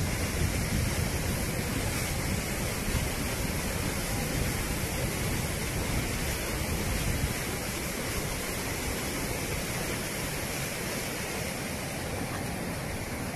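Flash-flood water rushing across a road: a steady, even rushing noise with a low rumble that eases after about seven seconds.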